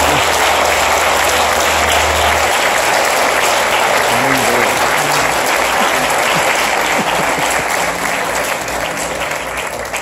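A congregation applauding steadily, dense clapping that begins to fade near the end.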